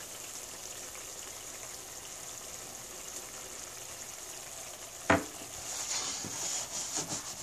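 A nonstick pan of rasam coming to the boil on an electric stove, a steady hiss with a light sizzle. About five seconds in there is a sharp knock as the pan is handled, followed by a few lighter clicks.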